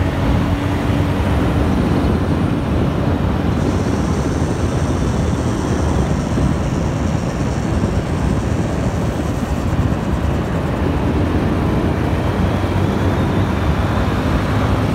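Steady engine drone with wind and road noise from a vehicle on the move, with a faint high whine from about four to ten seconds in.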